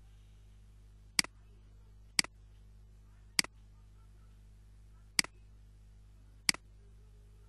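Five computer mouse button clicks, spaced unevenly about one to two seconds apart, each a sharp press followed at once by a softer release, over a faint steady low hum.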